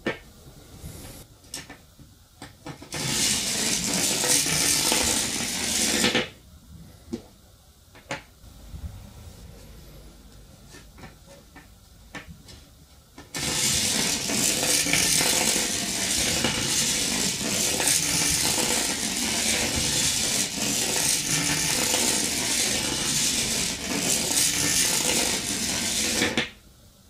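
A long coil of bare copper wire handled on a wooden table, its turns rattling and scraping against each other in a dense metallic jingle, in a three-second burst about 3 s in and again steadily from about 13 s in until shortly before the end. Between them come scattered small clicks and taps.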